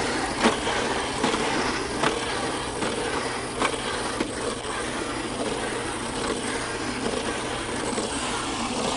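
Battery-powered toy walking robot running: its motor and gears make a steady mechanical rattle as it walks, with a few sharp clicks along the way.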